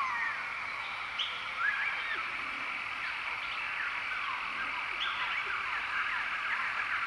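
Dense chorus of many birds whistling and chirping, made of quick rising and falling notes that overlap steadily throughout.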